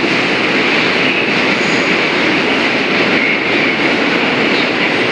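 New York City subway train running through the station out of view: a steady, loud rumble of wheels on rails with no let-up.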